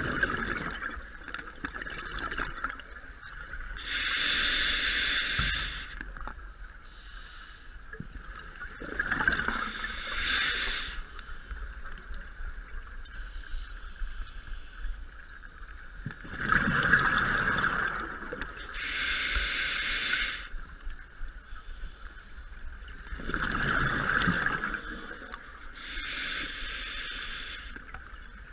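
A scuba diver breathing through a regulator underwater: rushes of exhaled bubbles and the hiss of inhaling come in one- to two-second bursts, several times, with quieter gaps between.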